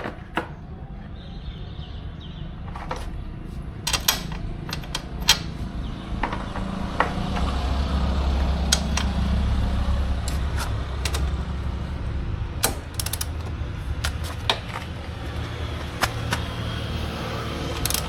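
Workshop tool and metal-parts noise while taking apart an electric scooter's rear wheel: scattered sharp clicks, knocks and clanks, over a low rumble that swells through the middle.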